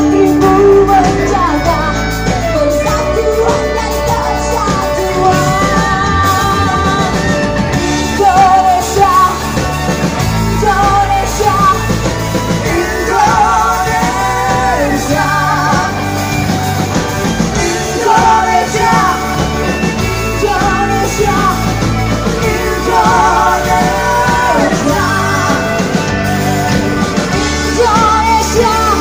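A live rock band with electric guitars, drums and keyboard plays loudly while a woman sings the lead vocal.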